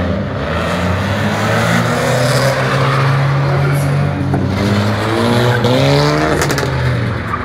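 Car engine running hard as the car drives past, its pitch climbing in a rev about five to six seconds in.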